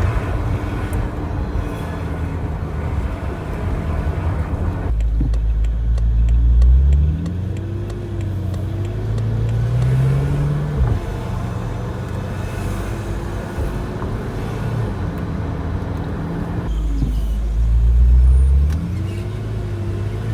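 BMW F10 M5 running with a whining, squealing noise over the engine sound, its pitch rising and falling, with two heavier low surges about five and seventeen seconds in. The whine comes from the gearbox and is put down to cold gearbox oil being pushed through the filter.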